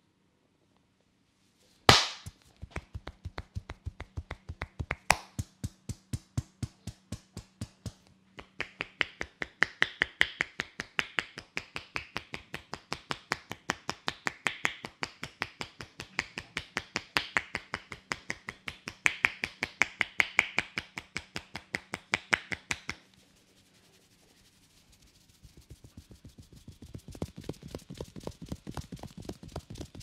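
Hands rapidly tapping and slapping on a man's head in a head massage, a fast even rhythm of about five strikes a second, opening with a loud sharp crack. The strikes stop briefly about two-thirds of the way through, then resume softer.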